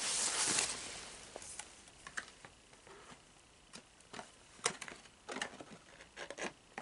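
A paper sheet rustling as it is moved and set down, followed by scattered light taps and clicks of items being handled.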